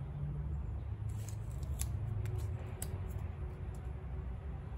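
Wire cutters snipping and clicking on a short length of bonsai wire: a scattered run of about ten sharp clicks between about one and three and a half seconds in, over a low steady background rumble.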